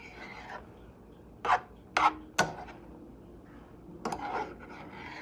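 A metal spoon stirring and scraping fried rice around a skillet. Three sharp knocks of the spoon against the pan come in quick succession around the middle.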